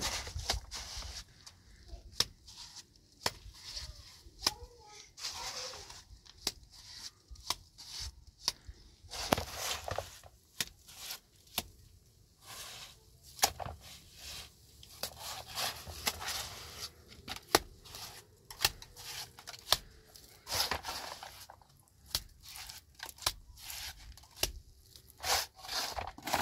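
Irregular scraping and rubbing strokes, with many sharp clicks and knocks between them, of hands working with tools or materials.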